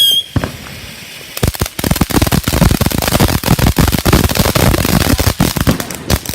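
Consumer fireworks: a short falling whistle at the start, then after a brief lull a long, rapid run of sharp pops and bangs, like a string of firecrackers going off.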